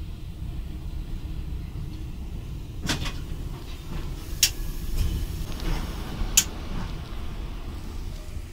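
ChS4t electric locomotive heard from inside its cab while rolling slowly: a steady low rumble, with three sharp knocks in the middle, the last the loudest.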